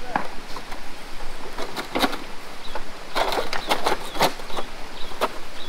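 Irregular sharp clicks and knocks, bunched together near the middle, with a few faint bird chirps.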